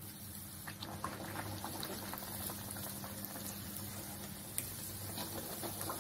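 Bhatura dough sizzling and bubbling as it deep-fries in hot oil in a kadhai: a dense, steady crackle that builds over the first second. A single short tap a little past four and a half seconds.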